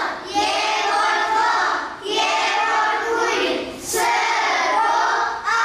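A group of children singing a prayer together in unison in Western Armenian, in three phrases of about two seconds each.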